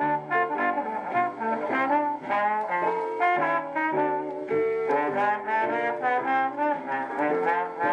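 1958 Dynavox portable stereo record player playing a vinyl LP of brass-led instrumental music through its own speakers, with short notes following one another without a break.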